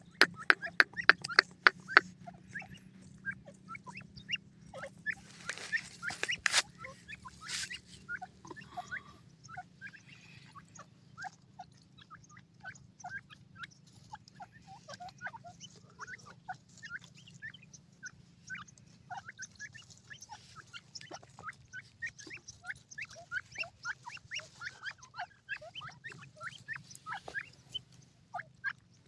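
A quick run of ticking clicks, about three or four a second, for the first two seconds: the feeding call that these francolin chicks have learned means food. After it, the chicks keep up many short peeping chirps, with a few louder scuffling noises about six to eight seconds in.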